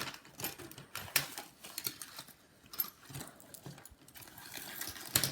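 Rummaging through a small tool bag for a plastic opening pick: a string of irregular small clicks and rattles, with light rustling between them.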